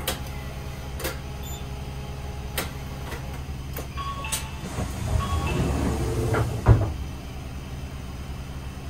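Cabin of a Hino Rainbow II medium bus at a standstill, its diesel engine idling with a steady low hum, light clicks and a few short beeps. A louder rumble swells between about five and seven seconds and ends in a sharp knock.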